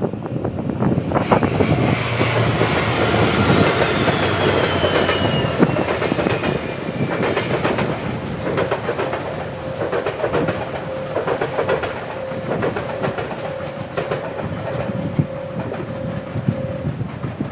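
Diesel train running past, its wheels clacking rapidly over rail joints, with a slowly falling whine in the first several seconds as it goes by.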